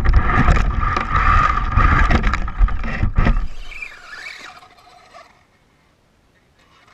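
Radio-controlled Slash 4x4 truck running on desert dirt: a high motor whine over loud rumbling and scrabbling, which fades away over about two seconds, starting roughly three and a half seconds in.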